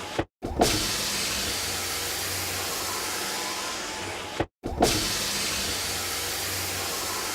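Car power window motor running as the glass travels. It stops with a knock, then after a short gap starts again with a clunk about halfway through and runs on.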